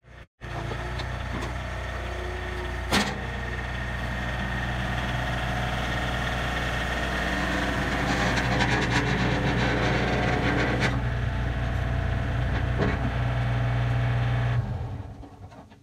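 A John Deere compact tractor's diesel engine running as the tractor drives up and over, getting louder as it comes closer and fading out near the end. There is a single sharp knock about three seconds in.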